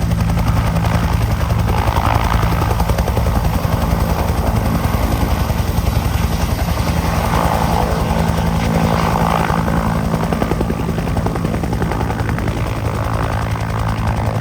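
Bell UH-1H Huey helicopter running close by: a steady low turbine hum chopped by the rapid, even beat of its two-blade main rotor.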